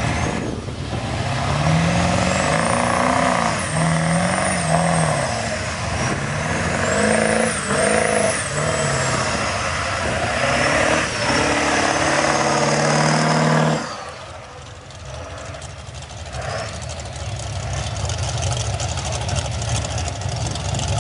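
Ford pickup's diesel engine revving hard over and over, its pitch climbing and falling, with a high whine rising and falling alongside it as the truck churns through mud. About fourteen seconds in the loud engine drops away suddenly, leaving a quieter steady engine sound.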